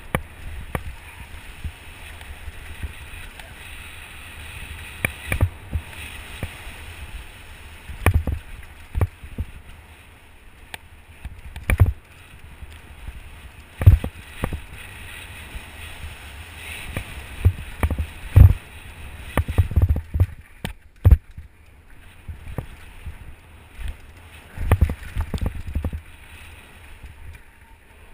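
Mountain bike rolling fast down a dirt forest trail: steady wind rumble on the action-camera microphone and tyre noise, broken every second or two by sharp knocks and rattles as the bike hits bumps.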